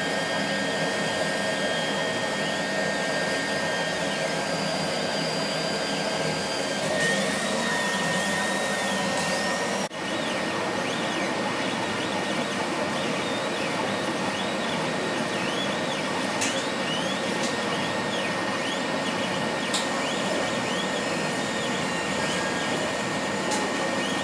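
CO2 laser cutter cutting, with a steady rushing noise and a thin, high, steady whistle that the beam gives off at the nozzle, over which short tones rise and fall in arcs again and again. The owner says the squeal appears after about half a year of work and goes away once the tube's distilled cooling water is changed.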